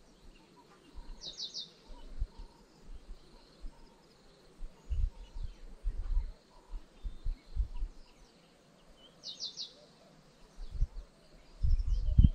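A bird calls twice, each time a quick run of three or four high notes, about eight seconds apart, over a faint open-air background. Low rumbles and thumps come and go throughout, loudest near the end.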